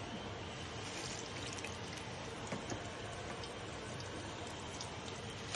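Ripe plantain slices frying in hot oil in a pan: a steady sizzle with small crackles scattered through it.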